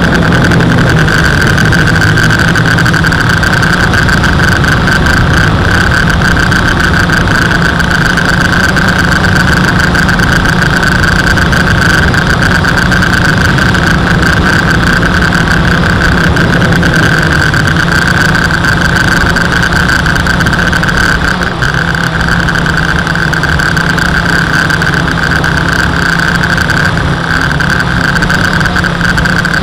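WLtoys V303 Seeker quadcopter's motors and propellers whining steadily in flight, picked up close by its onboard camera. The level dips slightly about two-thirds of the way through.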